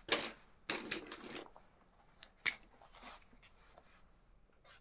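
Paper rustling as a sheet is handled and set out for drawing, in short bursts, with two sharp clicks about two and a half seconds in.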